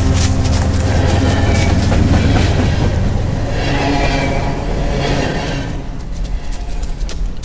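Loud rushing, clattering noise that swells about four seconds in and thins out toward the end, over a low sustained drone from the score.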